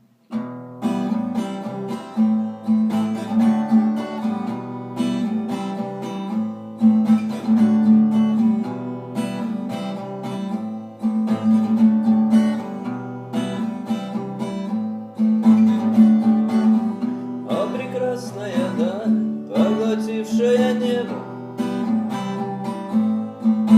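Acoustic guitar strummed in a steady rhythm over sustained low notes: the instrumental introduction of a song. A little past the middle, a wavering melody line comes in over the guitar for a few seconds.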